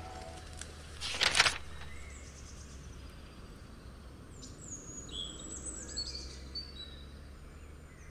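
Faint bird chirps over a low steady hum and background hiss, with a short whoosh about a second in.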